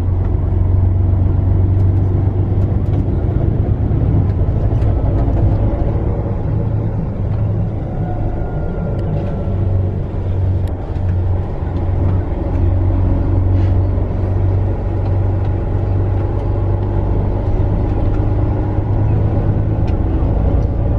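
Bus engine with road and tyre noise heard from inside the cabin while the bus is moving: a steady low drone.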